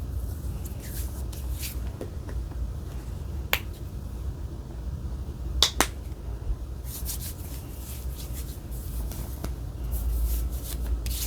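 Hands rubbing lotion together and into the skin, quick soft swishing strokes that become busier in the second half, with a few sharp clicks near the middle.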